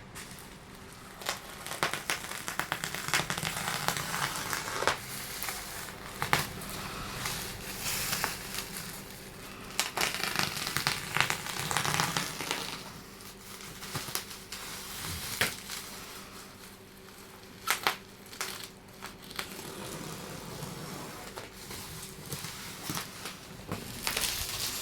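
TV packaging being handled and unwrapped: plastic wrapping crinkling and crumpling, with rustling and many sharp irregular clicks.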